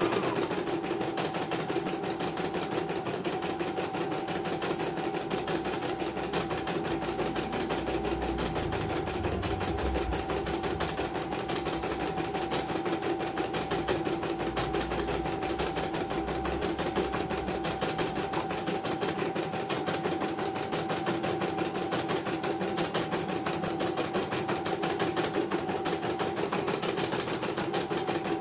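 CNY portable computerised embroidery machine stitching a design: a rapid, even run of needle strokes over a steady motor hum as the hoop carriage moves the fabric. A deeper rumble comes in for several seconds in the middle.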